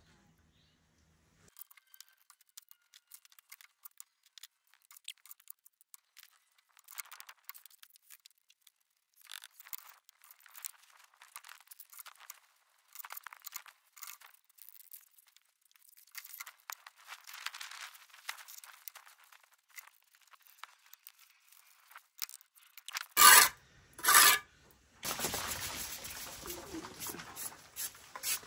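Bricklaying trowel scraping and tapping wet mortar and perforated clay bricks: scattered light scrapes and clicks, then two loud knocks about a second apart near the end, followed by denser, steadier scraping.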